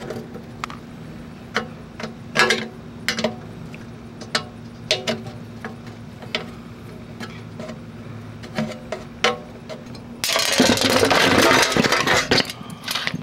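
Hand wrench clicking and clinking against the metal of a window air conditioner as the screws holding its fan motor are undone, with irregular sharp metallic taps. A little after ten seconds in comes about two seconds of loud, dense rattling and scraping.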